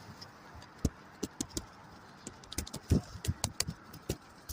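Scattered, irregular light taps and clicks of pigeons pecking at scattered seed and moving about around the feed.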